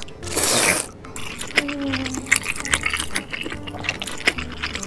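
A person slurping up a mouthful of jjajangmyeon noodles, one loud wet slurp about half a second in. Wet chewing follows, with many small clicks and smacks.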